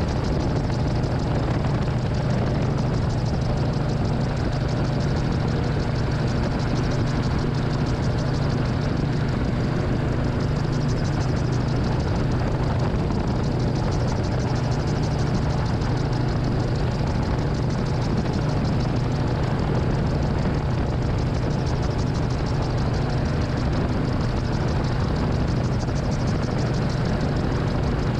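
Titanium Gyro gyroplane's engine and rotor droning steadily in cruise flight, heard from on board in the passenger seat.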